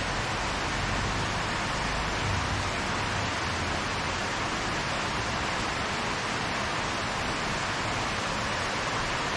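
Steady rain falling in the rainy season, an even hiss without let-up.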